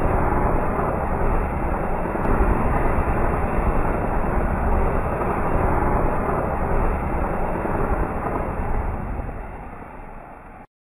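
Anar fountain firework spraying sparks: a steady rushing hiss that fades over the last couple of seconds as the fountain burns out, then cuts off suddenly near the end.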